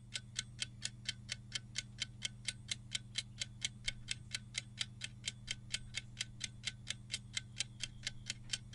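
Quiz countdown timer sound effect: even, rapid clock-like ticking, about four ticks a second, over a steady low hum.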